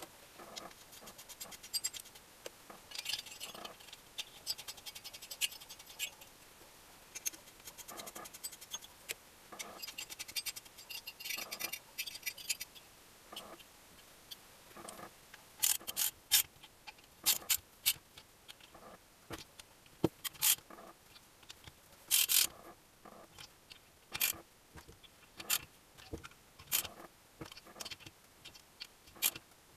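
Small metal clicks and scrapes of nuts and washers being fitted by hand onto the cylinder-head studs of an engine, followed in the second half by sharp ratchet clicks at irregular intervals as a socket ratchet runs the head nuts down.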